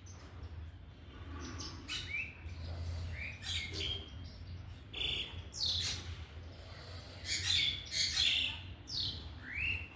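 Birds calling: a series of short chirps and quick upward-sweeping calls, busiest and loudest near the end, over a low steady hum.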